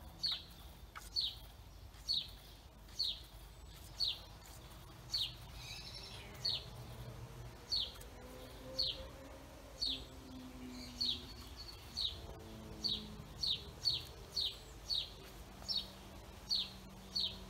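A small bird giving a short, high, falling chirp over and over, about once a second at first and quicker near the end.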